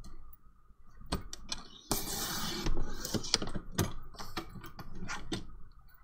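Fiskars sliding paper trimmer cutting a thin sliver off a manila clasp envelope: a short scraping rasp of the blade through the paper about two seconds in. Clicks and knocks of the trimmer and the paper being handled come before and after it.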